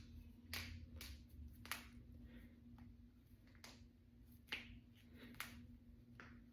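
Finger and knuckle joints being cracked: a series of about eight short, sharp pops at irregular intervals, each one a separate joint giving way.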